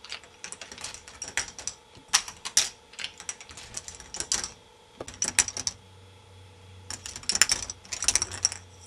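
Plastic balls clicking and clattering along the plastic track and connectors of a K'nex ball machine, in irregular clusters of rapid clicks. A low steady hum joins about five seconds in.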